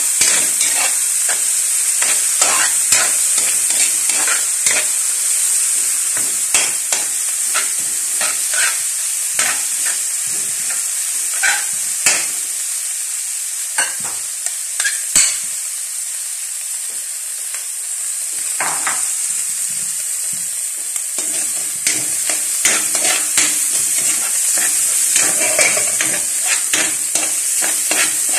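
Chopped onion and garlic sizzling in hot oil in a wok, with a spatula scraping and knocking against the pan as they are stirred. The stirring pauses for a few seconds past the middle, leaving only the steady sizzle, then picks up again.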